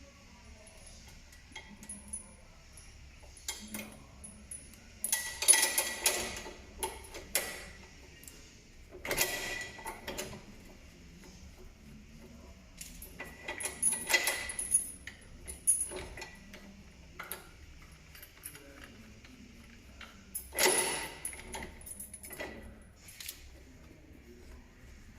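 Metal tools and fittings clinking and rattling in about four short bursts, with scattered single clicks between them, as a suspension-arm pull-down tool is fitted under a car.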